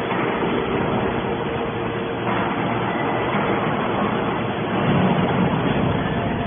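Hydraulic can baler's electric motor and pump running with a steady hum and noise, growing a little louder about two seconds in and again around five seconds.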